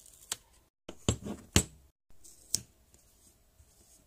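Several short, sharp clicks and taps from handling sticker labels and a plastic slime tub, the loudest pair about a second and a half in.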